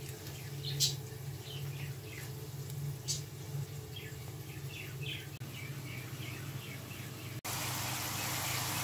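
Birds chirping in quick short notes over a steady low hum, with a couple of sharp clicks. About seven seconds in, it cuts abruptly to the loud, even hiss of rohu fish frying in hot oil.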